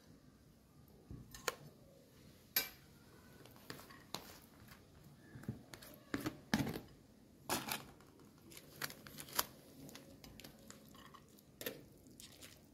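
Light, scattered clinks and scrapes of a fork and an aluminium foil takeaway tray and lid against a plate as biryani rice is scooped and tipped out, with some crinkling of the foil.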